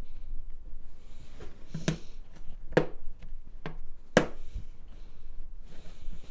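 Black sheet-metal stovepipe being pressed shut by gloved hands, its snap-lock seam giving a series of sharp cracks as the seam slides in and locks, loudest about two to four seconds in.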